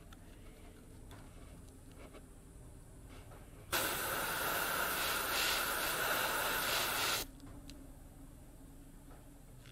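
Airbrush spraying paint in one steady hiss of about three and a half seconds, starting and cutting off abruptly as the trigger is pressed and released.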